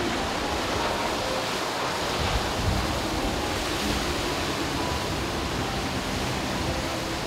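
Rushing water and spray from a rigid inflatable dive boat's hull running fast past close by, a steady hiss of wash with its outboard motor low underneath and wind on the microphone.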